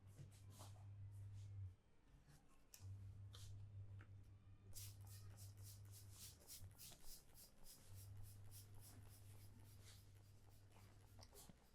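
Faint scratchy rubbing and tapping of a barber's hands on a customer's hair and scalp during a dry head massage, turning into a quick run of strokes from about five seconds in. A low hum cuts in and out underneath.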